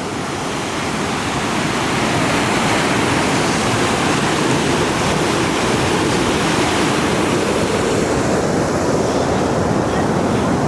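Fast river water rushing over rocks, a steady loud roar of whitewater.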